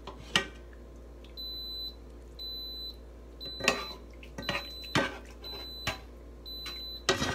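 Metal spoon and spatula clinking and scraping against a pan as noodles are served, in scattered sharp knocks. Behind them a high electronic beep starts about a second in and repeats about once a second.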